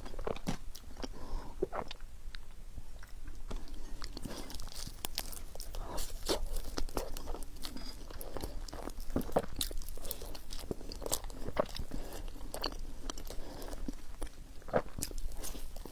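Close-miked eating sounds of a person biting and chewing roti lumer, a soft Indonesian bread with a melting filling, with many small, sharp mouth clicks throughout.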